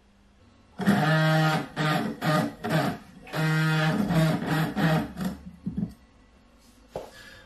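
Short electric guitar riff: a phrase of a long held note followed by a run of shorter notes, played twice.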